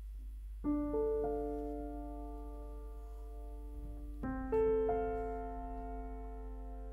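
Grand piano playing slow chords. The first chord is struck a little under a second in, with notes added just after, and is left to ring and fade; a second chord follows about four seconds in and rings the same way.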